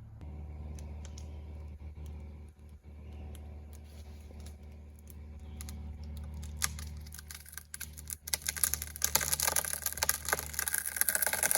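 Kubota mini excavator's diesel engine running steadily, with sharp cracks and pops starting about two-thirds of the way in and building into dense crackling near the end: wood fibres splitting as the tree is pulled over on the rope.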